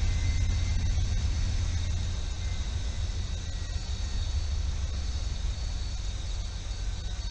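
Steady low rumble of an approaching freight train's diesel locomotive, with a light hiss above it.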